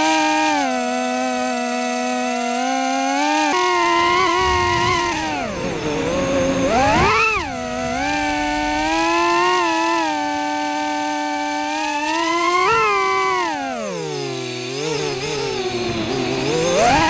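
Emax Tinyhawk 2 micro FPV drone's motors whining. The pitch rises and falls with the throttle, with two deep swoops down about six and fourteen seconds in and sharp climbs after them.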